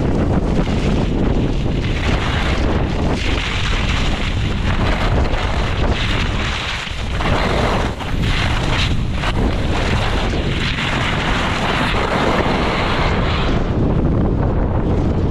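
Strong gusting wind buffeting the microphone: a loud, continuous rushing rumble that swells and eases, with a brief lull about seven seconds in.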